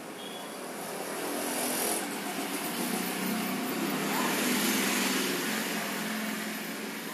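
A large potter's wheel spinning with a clay pot on it, the potter's hands and a shaping tool rubbing and scraping against the turning wet clay. The scraping swells about a second in and eases near the end, over a faint steady hum from the turning wheel.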